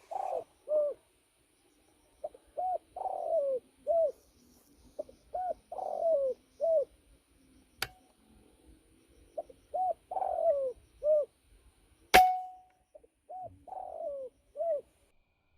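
Spotted dove (tekukur) cooing phrases, repeated at even intervals of about three to four seconds, from the recorded call used as a lure to draw doves in. A faint click about eight seconds in and a single sharp crack with a short ringing tail about twelve seconds in.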